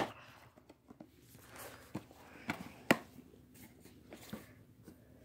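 Faint handling noise: scattered soft knocks and rustles as the phone is moved about, with one sharp click at the very start.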